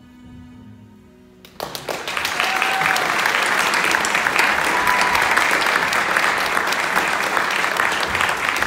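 The song's last held note dies away. About a second and a half in, an audience breaks into loud applause, which goes on steadily.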